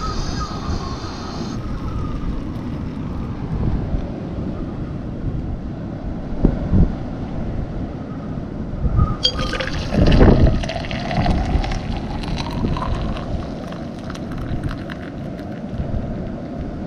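Hot water poured from a small pot into a coffee cup, starting about nine seconds in, with a steady wind rumble on the microphone throughout. A camping gas stove's hiss cuts off about a second and a half in.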